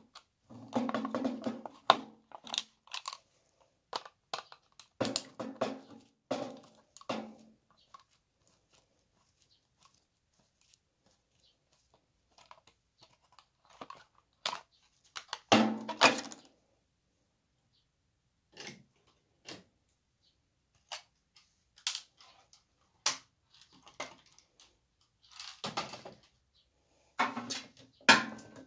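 Handling noise from a microwave oven being taken apart: scattered clicks, knocks and short rattles of plastic and sheet metal as the control panel is worked off the steel cabinet, with quiet gaps between. The loudest clatter comes about halfway through.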